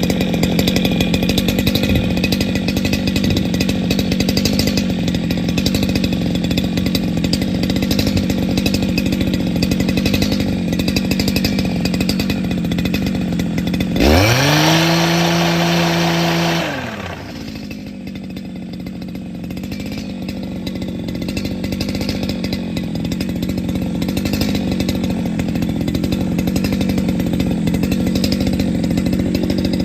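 A small motor running steadily with a whine, speeding up to a higher steady pitch about halfway through, then dropping back.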